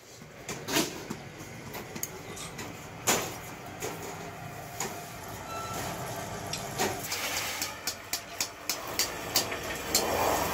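Sheet-iron workshop: scattered metallic clicks and knocks as iron sheets are handled, with three louder clanks among them. Near the end a rushing rattle as a large galvanized iron sheet is flexed.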